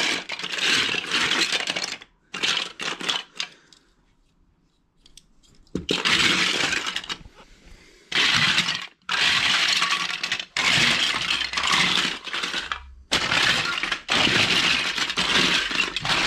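Plastic Duplo bricks clattering as a hand rummages and sweeps through a large pile of them, in bursts of a second or two, with a short pause about four seconds in.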